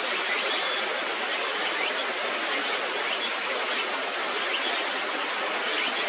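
Steady rush of river water, with a faint high rising chirp repeating every second or so.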